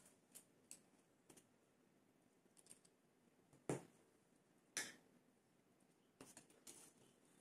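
Small metal spray-gun parts clicking and tapping as they are handled and fitted together by hand, with two louder clicks about halfway through and a short flurry of clicks near the end.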